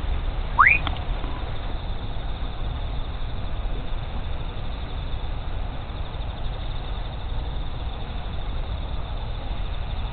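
Steady low outdoor rumble and hiss, with one short rising whistle-like tone a little over half a second in.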